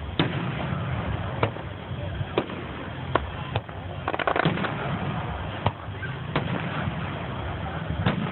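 Aerial firework shells bursting: sharp bangs about once a second, with a quick run of small pops about four seconds in, over a steady low background rumble.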